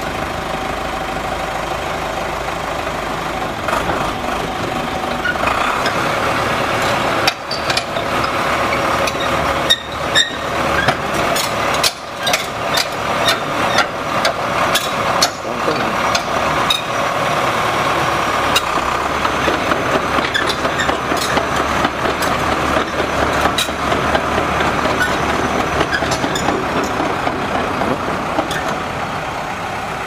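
Engine of a small tracked loader with a dozer blade running steadily, with a stretch of sharp clanks and knocks about a quarter of the way in that go on for roughly ten seconds.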